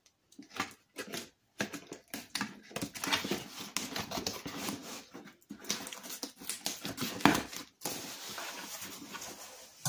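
Scissors cutting through a cardboard shipping box: irregular snips and cardboard rustling, with one louder cut about two-thirds of the way in.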